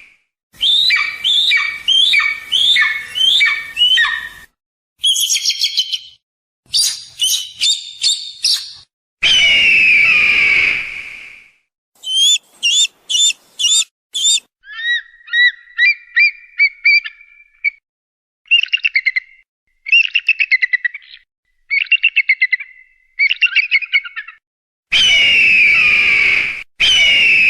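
A run of eagle calls separated by short silences: quick series of short high chirps and whistled notes, rapid chittering, and twice a long, loud scream that falls in pitch.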